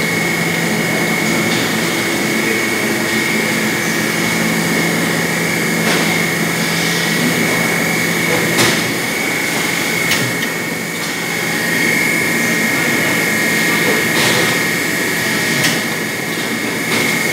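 CFS SX400 vertical bagging machine running: a steady mechanical hum with a constant high whine, and sharp clicks now and then, one to four seconds apart.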